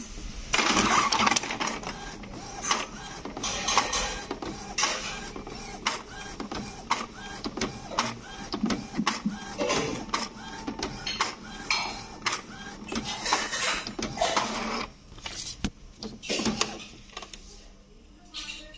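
Epson inkjet printer printing a page: the print-head carriage whirs back and forth across the paper in repeated passes, about one a second, with the paper-feed mechanism clicking between passes. The passes stop about fifteen seconds in, and only a few quieter mechanical sounds follow.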